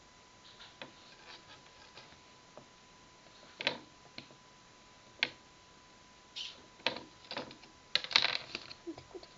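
Small objects being handled on a work surface during a paper-craft job: scattered sharp taps and clicks with short rustles, busiest in a quick cluster about a second before the end.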